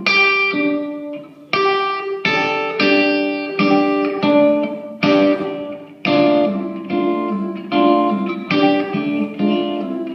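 Electric guitar playing a run of chords, each struck sharply and left to ring and fade, about one every half second to second.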